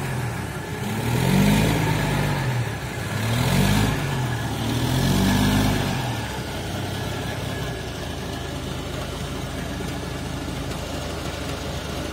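Forklift engine revving up and down about three times, then settling to a steady idle about halfway through.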